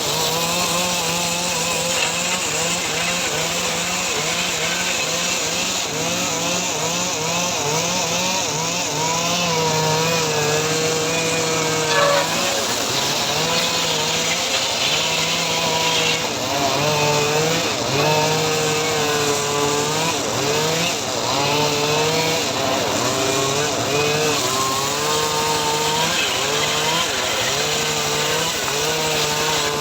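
Homemade engine-driven log saw (srekel) sawing through teak wood. The motor runs continuously, and its pitch wavers up and down as the blade's load changes.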